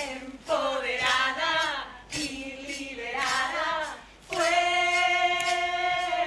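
Voices singing without instruments: two short phrases that slide up and down, then a long held note from about four seconds in.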